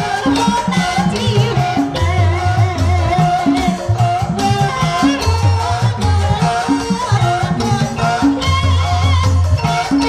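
Javanese gamelan playing ebeg dance accompaniment: bonang and kenong kettle gongs with drum and gong, under a wavering high melody line.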